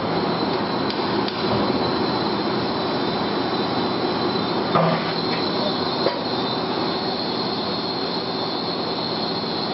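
CNC metal spinning machine running with a steady noise and a high whine that grows stronger in the second half, with a few short metal clanks as the large spun part is handled on the mandrel.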